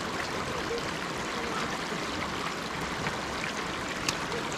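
Stream water running steadily, an even wash of noise at a constant level.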